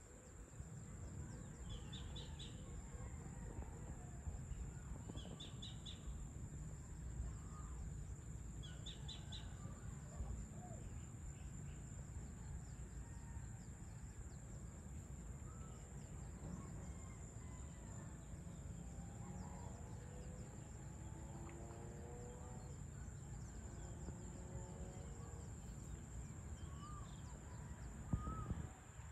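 Outdoor evening ambience: a steady low hum of a distant town under a steady high insect whine. A small bird gives a short high trill four times, about every three and a half seconds, in the first ten seconds. Distant crows caw in a run of short calls about two-thirds of the way through.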